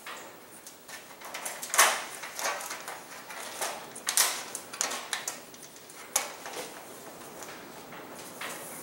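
LED tubes being fitted into the end sockets of a converted fluorescent light fixture: irregular handling clicks and scrapes as the tubes are set in and turned. The loudest knocks come about two and four seconds in.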